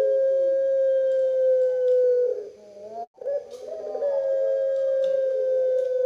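Caged collared dove of the puter pelung type, kept for its long drawn-out coo, cooing: one held, slowly falling note of about two seconds, a short break, then a second, longer held note that also slowly falls.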